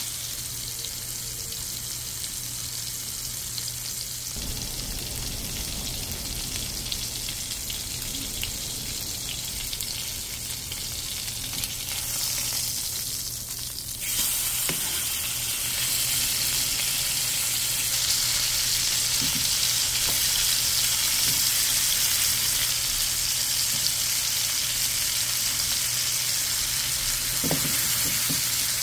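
Steak and garlic cloves sizzling in oil in a frying pan. About halfway through the steak is flipped and the sizzle gets louder. A few light knocks come through over the sizzle.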